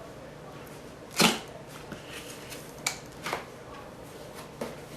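A cardboard box and its packaging being handled and opened: one loud scraping rustle about a second in, then several shorter rustles and clicks.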